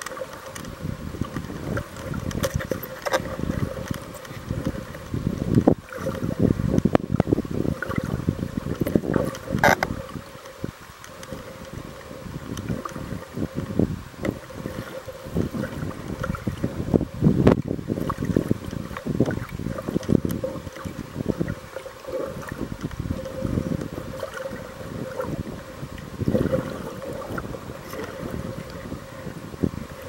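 Muffled underwater noise picked up by a submerged camera: uneven low water rushing and sloshing, with a faint steady hum underneath and a few sharp knocks.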